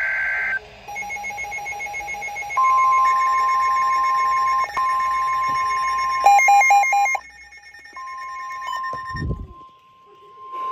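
Several NOAA weather radios going off together for a severe thunderstorm warning. It opens with the end of a short buzzy data burst, the SAME header. Then come the receivers' pulsing electronic alert beeps and the steady, high 1050 Hz warning alarm tone, which breaks off briefly and starts again about eight seconds in.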